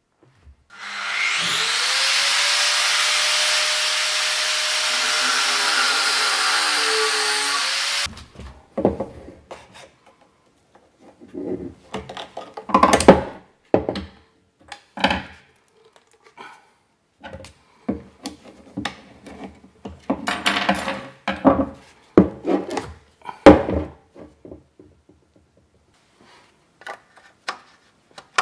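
A power tool runs for about seven seconds, spinning up with a rising whine, then stops abruptly. After it come scattered clicks, taps and knocks of a coolant hose being handled and its hose clamp tightened with a screwdriver.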